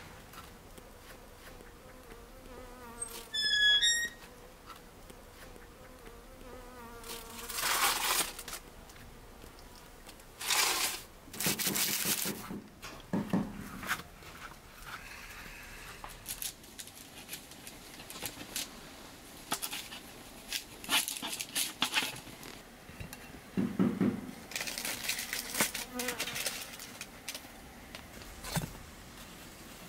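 Bees buzzing in a steady drone, with a quick run of high chirps about three seconds in and several short bursts of rustling and handling noise.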